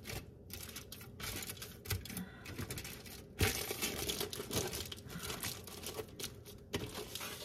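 Aluminum foil crinkling as it is folded and pressed by hand around a raw meatloaf: a run of irregular crackles and rustles, busiest from about three and a half seconds in.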